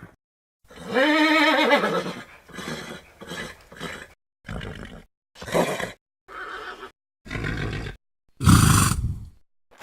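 Pachycephalosaurus sound effects: a string of separate creature calls with short silences between. The first is a long whinny-like cry that rises and then falls in pitch, followed by about five shorter calls and a final loud, low call near the end.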